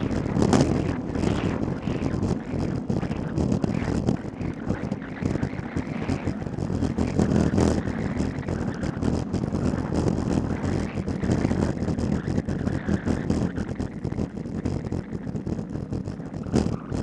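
Wind rushing over the microphone of a camera mounted on a racing bicycle moving at speed: a steady rumbling noise that gusts up and down.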